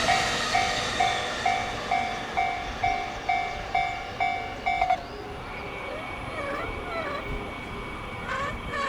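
Japanese level-crossing warning bell ringing in an even two-tone ding about twice a second over the fading rumble of a passing E231-series electric commuter train. The bell cuts off about five seconds in as the crossing clears, and birds call in the quiet that follows.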